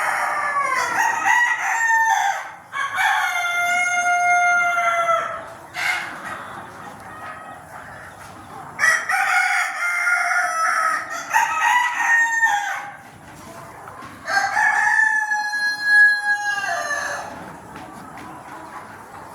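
Desi roosters crowing, four long crows one after another, each ending on a long held note.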